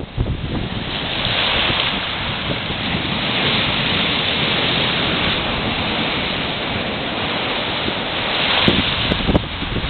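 Sea surf washing onto the shore in steady wind, the wash swelling every few seconds as waves break. Wind buffets the microphone, with a couple of low thumps near the end.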